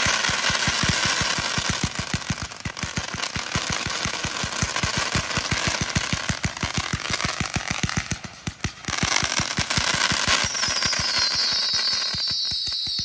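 A 300-shot Apocalyptica consumer firework cake firing a rapid stream of shots, around ten a second, over a continuous hiss and crackle. The firing thins briefly about eight seconds in, then picks up again.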